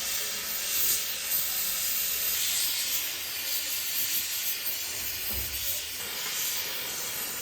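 Electric arc welding an aluminum alloy rim with filler rod: a steady, flickering hiss of the arc.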